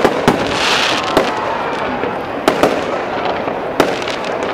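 Aerial firework shells bursting overhead: about six sharp bangs at uneven intervals, with a brief high hiss about half a second in.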